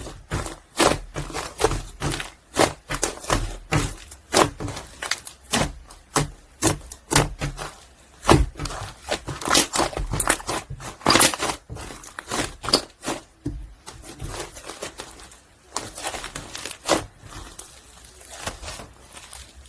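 Foam ball slime, packed with foam beads, being squeezed and pressed by hand, giving an irregular run of crunchy crackles and pops, several a second, thinning out somewhat after the middle.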